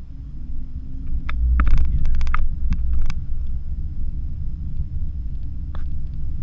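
Low rumble inside the cabin of a Porsche Macan as it drives over a rough sandy dirt track. The rumble swells about a second in, with a quick cluster of knocks and rattles from bumps until about three seconds in, and one more knock near the end.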